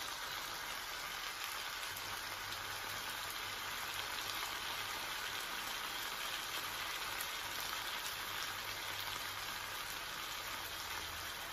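Chopped bitter melon sizzling steadily in a frying pan as it sautés, an even quiet hiss.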